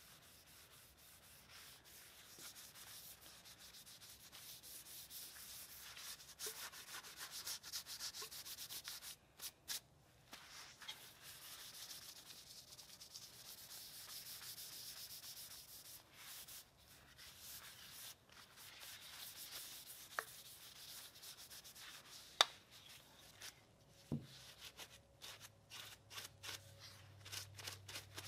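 A cloth rag rubbing finish into a walnut gunstock: soft, uneven wiping strokes, with a few light clicks, the sharpest a little after two thirds of the way through.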